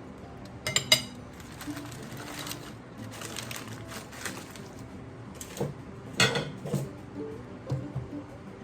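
Dishes and cutlery clinking in sharp knocks, a pair about a second in and several more near the end, over soft background music.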